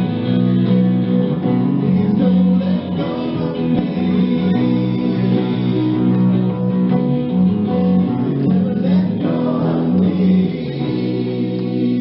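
Background music: a guitar-led song with sung vocals, held chords changing every second or two.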